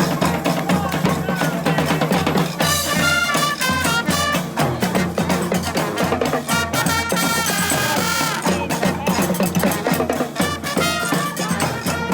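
Street brass band playing live: horns over a steady percussion beat, with the horns loudest and brightest from about three seconds in to about eight seconds.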